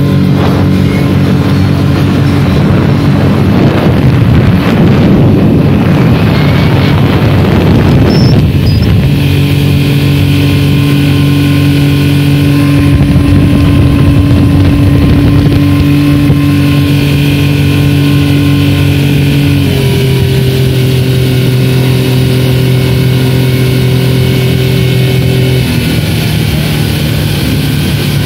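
Honda 40 hp four-stroke outboard motor running at speed, with water rushing and splashing along the hull and wake. A heavy rush of water and wind covers the engine for the first several seconds, and the engine's tone shifts a little twice in the second half.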